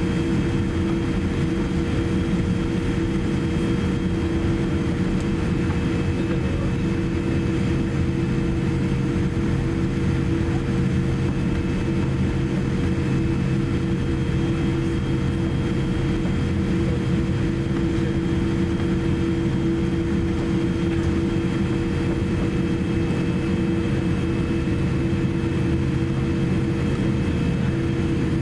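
Steady cabin noise inside a Boeing 787-8 taxiing: the GEnx-1B turbofans at taxi idle, a low rumble with a few steady hums and a faint high whine.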